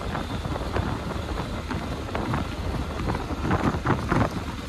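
Wind buffeting the microphone of a motorcycle on the move, in uneven gusts, with a low rumble of engine and road underneath.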